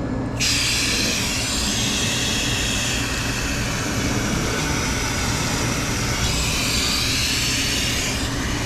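Garden hose spraying water onto a walk-in cooler's condenser coil, rinsing dirt out of the fins. The spray starts suddenly about half a second in and runs as a steady hiss.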